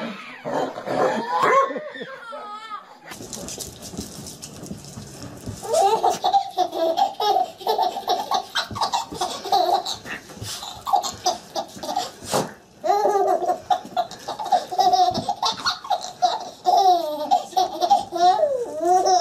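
A baby laughing in repeated short bursts of giggles, one run after another.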